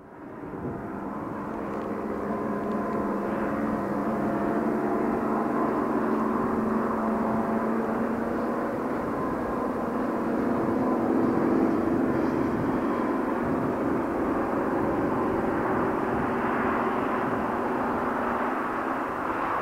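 Diesel locomotives, Class 55 Deltic 55009 and Class 66 66082, working under full power ('thrash'). The engines make a loud, steady drone with several held tones; it swells over the first few seconds and is loudest around halfway through.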